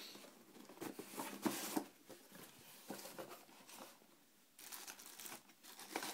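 A lens box being opened and its packaging handled: irregular rustling and crinkling of cardboard and wrapping. There is a cluster about a second in, a short one around three seconds, and a longer stretch near the end.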